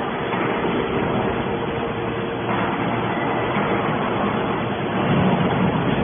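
Hydraulic scrap metal baler running, a steady mechanical hum and hiss from its power unit. It swells slightly louder near the end.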